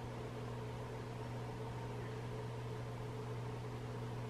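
Steady low electrical hum with a faint hiss, unchanging throughout: the room's background noise while no one speaks.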